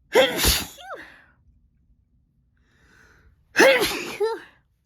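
A person sneezing twice, about three and a half seconds apart, each a loud sudden burst ending in a pitched falling tail, with a short breath in before the second.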